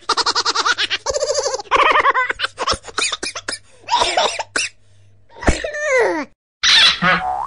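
Sound-effect clips in quick succession, mostly laughing and other comic voice-like sounds: rapid pulsing laughter at first, then several sounds falling in pitch about four to six seconds in, with a brief silence near the end.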